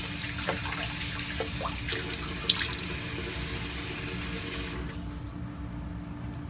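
Sink faucet running warm water, turned off a little under five seconds in. A single sharp click comes about halfway through.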